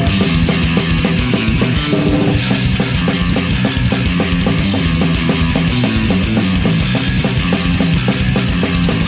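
Punk band playing live: fast drum kit beat with loud distorted electric guitar and bass, no vocals.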